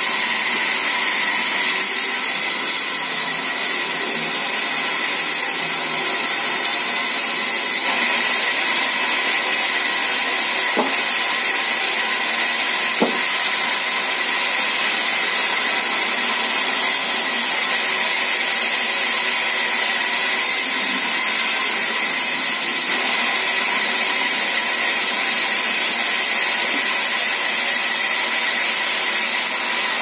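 Large sawmill band saw running steadily while a log is fed through it, a high-pitched, even whine-and-hiss of blade and wood. Two faint knocks come near the middle.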